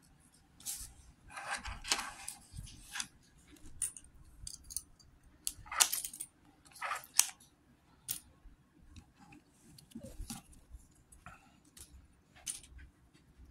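Small plastic LEGO minifigure pieces and their bag being handled: irregular light clicks and clatter with brief rustling.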